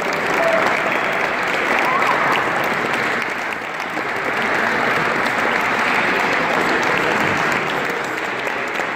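Steady applause: many hands clapping at once from a small group of players and spectators.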